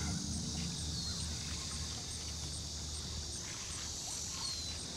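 Outdoor insect ambience: insects chirping in a steady, regular pulse of about three high chirps a second, over a constant high hiss. Two short, faint falling chirps come through, one about a second in and one near the end.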